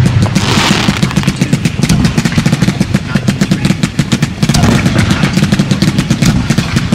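Fireworks cakes firing from close by: a rapid string of sharp reports, several a second, as the shots launch and burst, with a brief hiss about half a second in and a short lull about four seconds in before the firing picks up again.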